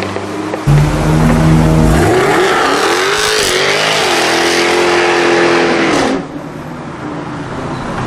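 Jaguar F-Type R's supercharged V8 engine accelerating hard: the engine note comes in loudly under a second in, climbs steeply, holds high with a hiss over it, then drops away sharply with falling pitch about six seconds in.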